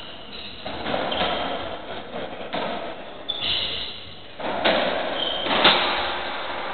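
Racketball rally on a squash court: several sharp knocks of the ball off the rackets and walls, the loudest about a second before the end, with short squeaks of shoes on the wooden floor.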